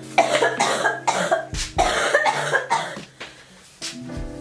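A young woman sneezing repeatedly in quick succession, each sneeze a short, forceful burst with some voice in it. She is ill with flu.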